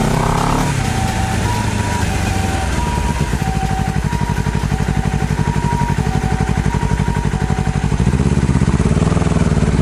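Honda CBR250RR engine running under way, its revs rising briefly at the start and again near the end, with wind on the microphone. An ambulance siren's high-low two-tone call alternates over it, stopping about two seconds before the end.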